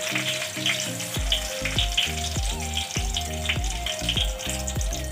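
Whole spices (bay leaf, cinnamon stick and cardamom pods) sizzling and crackling steadily in hot oil in a pan. Background music with a steady beat plays over it, and its bass line comes in about a second in.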